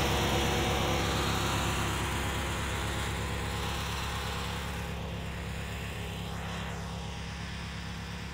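A riding garden tractor's small engine idling steadily, gradually getting quieter.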